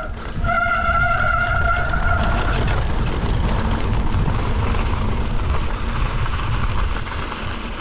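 Mountain bike descending a bikepark trail: wind on the microphone and a steady rumble of tyres and bike over the ground. A steady high buzz with overtones runs for the first two and a half seconds, then gives way to rougher, noisier rumble.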